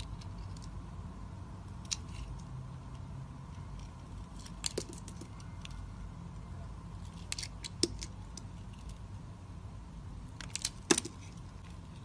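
Snap-off utility-knife blade cutting into a bar of soap, giving crisp crunching clicks in four short clusters, the loudest near the end.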